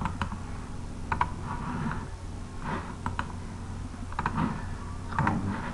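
Computer mouse clicks in small clusters, some in quick pairs like double-clicks, about once a second, over a steady low electrical hum.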